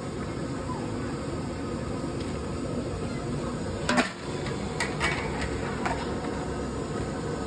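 Steady sizzle of potato slices deep-frying in a large kadhai of hot oil. About four seconds in there is a sharp metal clank, followed by a few lighter knocks, as a steel skimmer tips fried wafers into a steel bowl.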